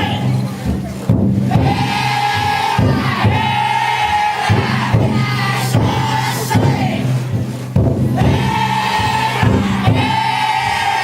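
Festival bearers of a futon daiko drum float chanting together in repeated drawn-out calls, with a few sharp drum-like thumps among them.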